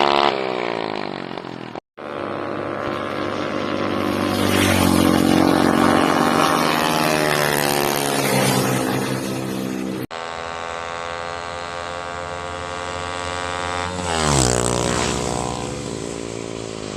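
Big-bore four-stroke drag motorbike engine running hard in a few cut-together clips, its note rising and falling with the throttle. Near the end the pitch drops steeply after a loud surge.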